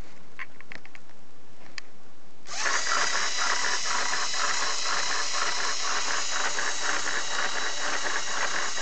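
A few faint clicks, then about two and a half seconds in a Lego Mindstorms electric motor starts and whirs steadily, driving a Lego inline-four engine model with a rhythmic plastic clatter about four or five times a second. The builder says the motor struggles a little under the load.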